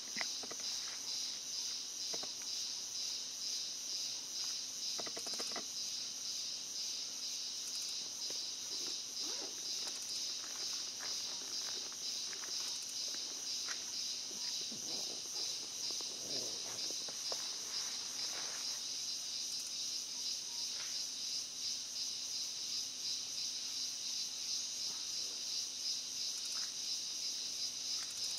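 Insect chorus: a steady, high-pitched, finely pulsing trill that holds at one level throughout.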